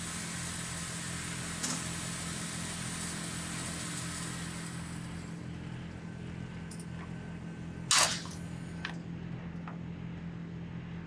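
A steady low mechanical hum, with one short, sharp, loud crack about eight seconds in and a few faint clicks.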